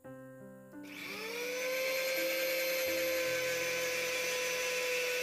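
Electric mixer grinder with a stainless steel jar starting up about a second in, its motor whine rising quickly to full speed and then running steadily, blending a thin egg-and-milk batter.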